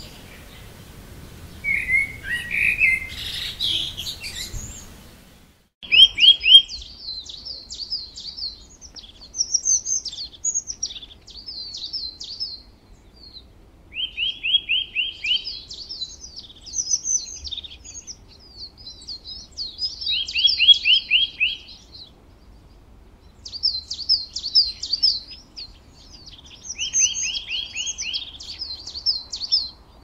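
Small songbirds chirping and twittering. From about six seconds in, one song dominates: high twittering phrases broken by a short, fast trill that comes back about every six to seven seconds.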